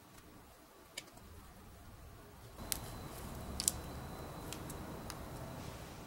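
Faint handling noise from a gloved hand at the oily roller chain in a harrow's chain case: a soft rustle that grows louder about halfway through, with a handful of light metallic clicks.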